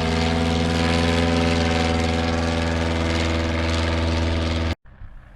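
Replica Bristol Boxkite's piston engine and propeller running steadily with an even drone. The sound cuts off abruptly near the end, leaving only faint background noise.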